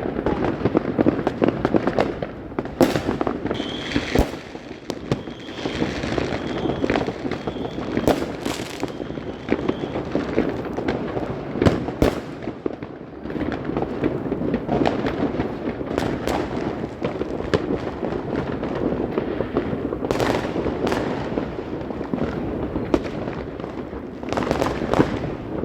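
Many fireworks going off at once: a dense, continuous crackle with louder sharp bangs every few seconds.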